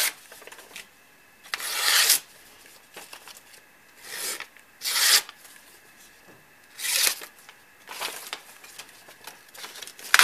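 Large chopper-style competition knife, a Dan Keffeler competition cutter in S35VN steel, slicing through hand-held sheets of paper: about six short swishes at uneven intervals, each under a second, with paper rustling between them. It is a paper-slicing test of the blade's edge sharpness.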